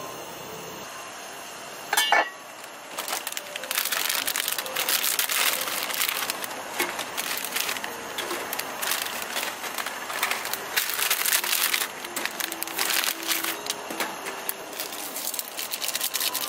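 A metal pot lid knocks once against the pot with a brief ring about two seconds in. Then a plastic instant-noodle packet crinkles and rustles at length as it is torn open and emptied.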